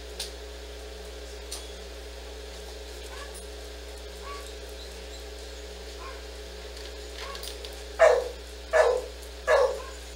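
A dog barking three times in quick succession near the end, about one bark every 0.7 seconds, loud over a steady low hum.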